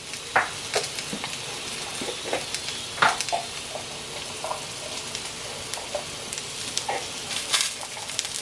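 Chicken sausages sizzling in hot olive oil in a large pan: a steady hiss with scattered crackling pops and a few louder clicks.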